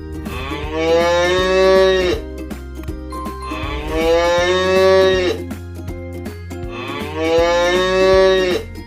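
Cow mooing three times, each moo about a second and a half long and evenly spaced about three seconds apart.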